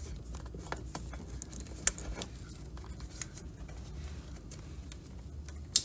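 Small clicks and rustling of a plastic PCV hose fitting and rubber hose being worked into place, with a sharp click about two seconds in and a louder sharp snap at the very end as the quick-connect fitting locks onto the stock hose.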